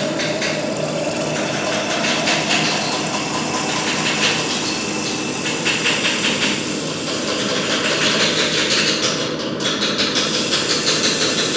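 Red-hot forged steel knife held in tongs and submerged in a bucket of quench oil, sizzling and crackling steadily as it quenches.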